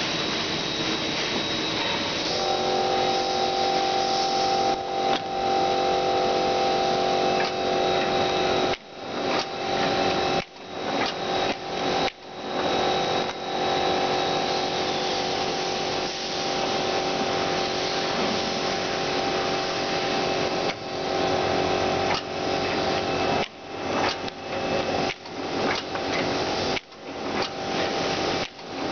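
Kunshan Dapeng automatic film die-cutting machine running: a steady mechanical hum with several whining tones. From about nine seconds in, the sound repeatedly drops out for a moment and comes back.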